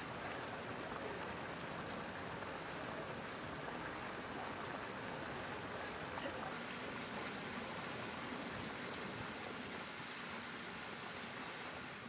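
Steady rush of running water, an even noise that holds at one level throughout.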